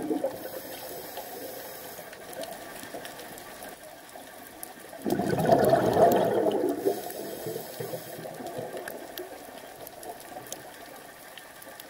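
Scuba diver breathing through a regulator underwater: a short hiss of inhaling near the start, then a burst of exhaled bubbles about five seconds in that lasts about two seconds, followed by a quieter stretch and another short hiss.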